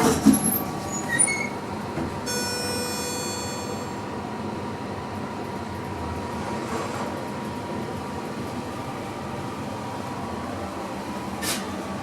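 ThyssenKrupp machine-room-less lift in operation: a few clicks and short high beeps at the start, a buzzy electronic beep from about two to four seconds in, then a steady running hum as the car travels.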